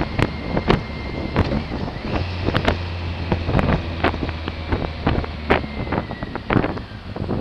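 Wind buffeting the microphone of a moving motorcycle, with irregular thumps throughout. A steady low engine hum sits under it from about two seconds in until a little past five seconds.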